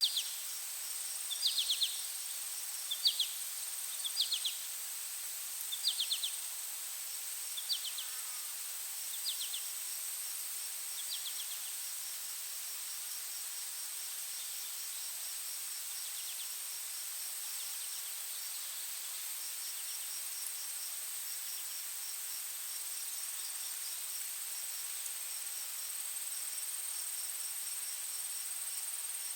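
Forest insect ambience: a steady high-pitched insect drone with a faint, rapidly pulsing insect chirp. During the first ten seconds or so, a short bird call repeats about every one and a half seconds, then stops.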